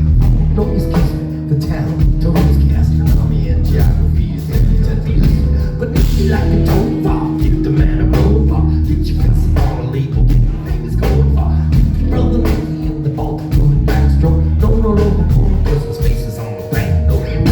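Live rock band playing a song: electric guitar, bass and drum kit, with some singing.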